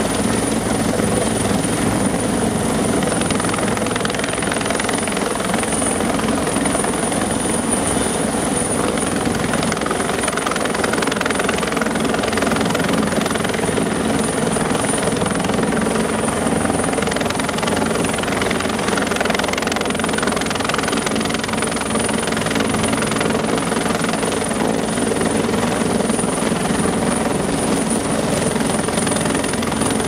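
Heavy vehicle engine running steadily at a constant speed, loud and unbroken.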